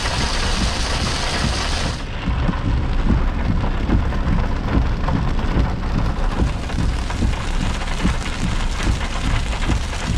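Heavy downpour falling on a car's roof and windscreen, heard from inside the cabin, with a steady deep rumble underneath. The high hiss of the rain drops away suddenly about two seconds in.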